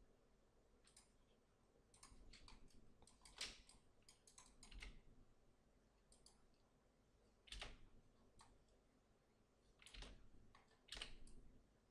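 Faint, scattered clicks of a computer mouse and keyboard, a dozen or so spread irregularly over near silence.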